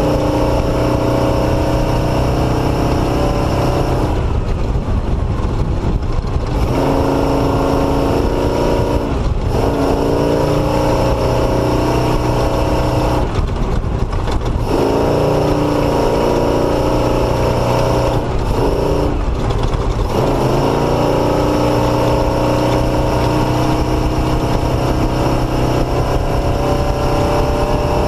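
Motorcycle engine running under load on a dirt trail, its pitch climbing and then dropping back about five times as the rider shifts or rolls off the throttle. Steady wind rush on the microphone throughout.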